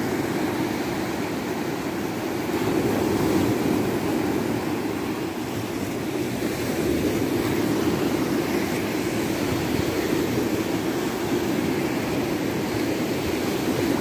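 Small surf breaking and washing up the sand at the water's edge: a steady rushing rumble that swells slightly every few seconds.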